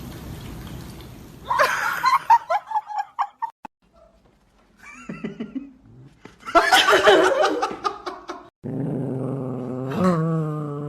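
A dog vocalizing, with human laughter; near the end there is a long, wavering, drawn-out call.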